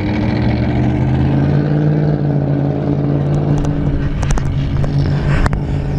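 Federal Sign & Signal 3T22 outdoor warning siren sounding its attack signal: a low chord of several tones that climbs in pitch at the start and then holds steady, with a few sharp clicks a few seconds in.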